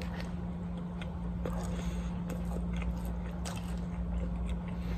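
A person chewing a mouthful of food, with scattered small clicks and crackles, over a steady low hum.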